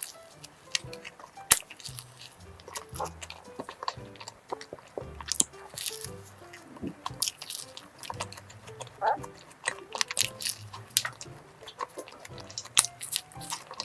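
Close-up bites and chewing of a flaky cream-filled cone croissant, crisp pastry crackling in many small crunches, over soft background music.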